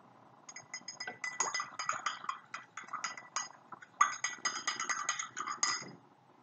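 A metal spoon stirring a drink in a glass tumbler, clinking rapidly and unevenly against the glass. The clinking starts about half a second in and stops near the end.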